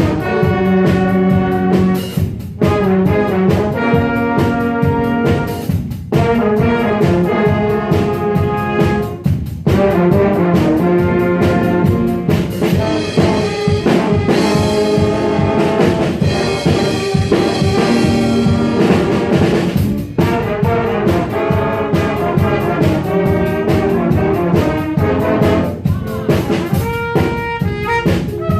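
Jazz big band playing, with the brass section and drum kit.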